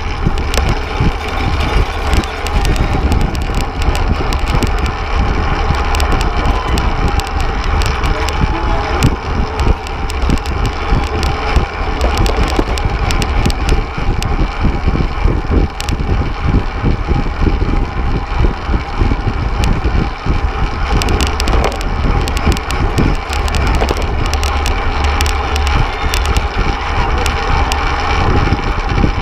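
Wind buffeting the microphone of an on-board camera on a fixed-gear racing bicycle at race speed, a steady heavy rumble, mixed with tyre and chain noise and frequent sharp clicks and rattles.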